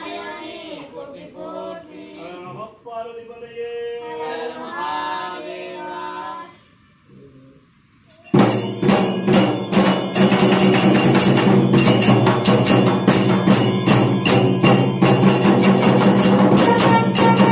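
A voice sings an unaccompanied devotional invocation. After a short pause, about eight seconds in, the Kailaya vathiyam temple ensemble suddenly strikes up loudly: double-headed barrel drums beaten in a fast, driving rhythm, large brass cymbals clashing, and a long brass horn holding a steady tone underneath.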